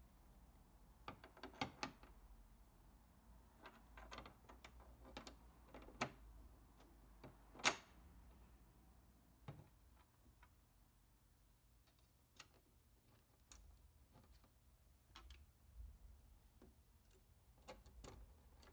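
Quiet, scattered small metallic clicks and taps as a clevis end is fitted onto a steel spoiler bracket and secured with a pin and hairpin clip, with one sharper click a little before the middle.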